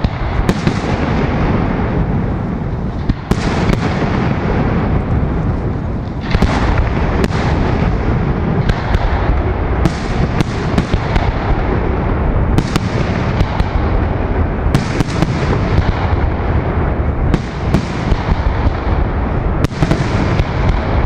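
Aerial firework shells bursting in a dense, continuous barrage: deep booms run together, with sharp cracks every second or two on top.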